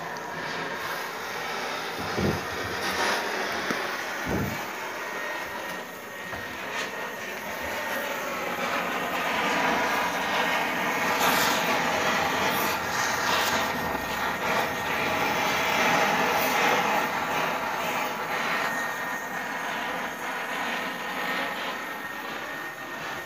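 Gas welding torch flame hissing steadily as it welds a steel heating pipe, swelling louder midway, with two dull knocks in the first few seconds.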